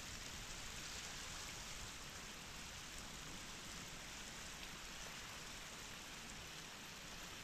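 Steady hiss of a shallow stream running over gravel.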